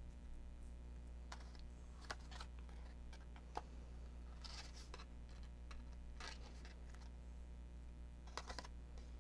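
Faint rustling of paper and scattered light clicks and taps as card-making pieces are handled on a desk, with a quick run of three ticks near the end, over a steady low hum.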